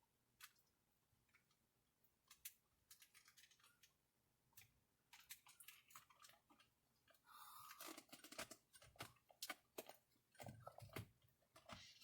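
Faint scattered clicks and short plastic scrapes of a car horn pad being handled and pressed onto the steering wheel, a little busier in the second half.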